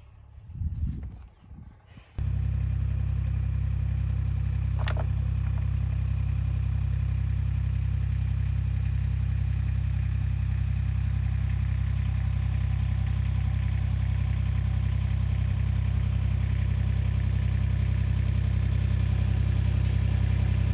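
A vehicle engine idling steadily, a constant low hum that comes in suddenly about two seconds in and runs without change.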